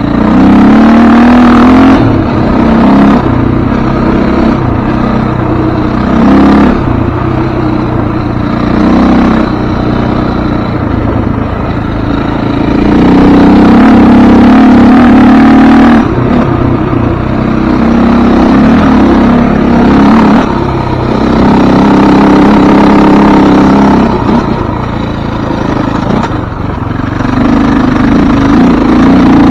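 Off-road vehicle engine running while driving a dirt desert trail, loud throughout, swelling and easing off several times as the throttle opens and closes.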